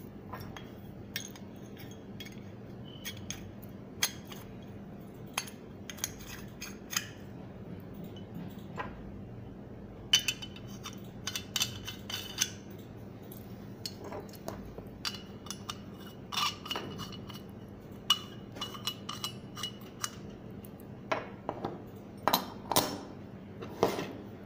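Metal sections of zinc-alloy herb grinders clinking and clicking against each other and the tabletop as they are handled, fitted and screwed together: scattered sharp clicks, some with a short metallic ring.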